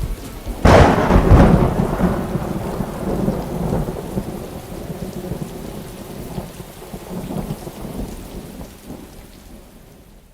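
Thunderclap: a sudden crack about a second in, then rolling thunder rumbling away over several seconds, with rain falling throughout.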